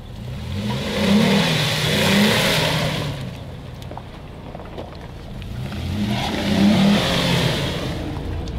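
Mitsubishi Pajero Sport's engine revving hard in two long surges, each rising and then falling away, with its wheels spinning and churning in deep mud while the SUV is bogged in a rut.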